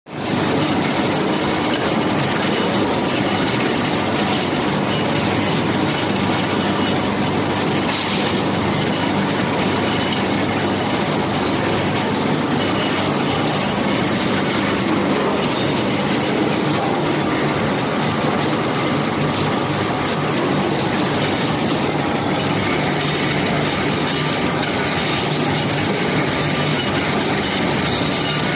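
KC-200 king crab leg shell-opening machine running, a steady, even mechanical noise with no pauses.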